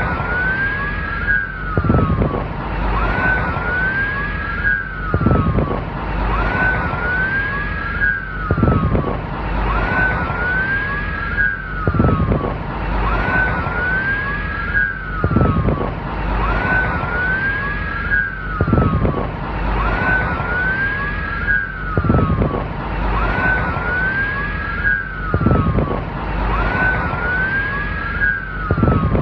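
Police car sirens wailing, two of them overlapping out of step, each rising and falling in pitch over about a second, over a low rumble. The same pattern repeats about every three seconds, as in a short loop.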